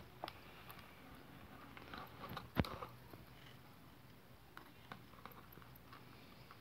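Faint clicks and crackles of a thin clear plastic deli container being handled and pried at the lid with metal tweezers, with one sharper click about two and a half seconds in.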